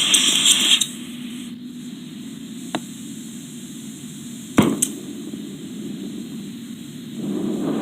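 Workshop metalwork noises. A loud hiss cuts off about a second in. A sharp knock comes near the middle, followed quickly by a lighter one, and a low rushing noise starts near the end.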